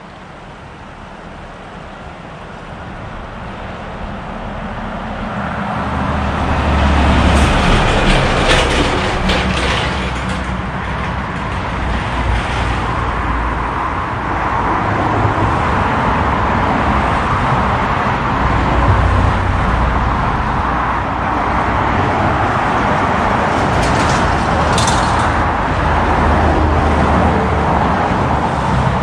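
Road traffic passing close by. Engine and tyre noise builds over the first six or seven seconds and stays loud, with a low hum and a few short clatters around eight and twenty-five seconds in.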